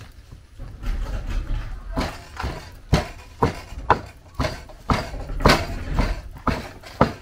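Steady rhythmic knocking from food preparation, about two sharp strokes a second with a dull thud under each, starting about two seconds in after a softer shuffling.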